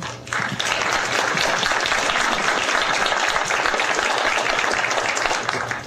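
An audience applauding, the clapping starting right after a rousing line and dying away near the end.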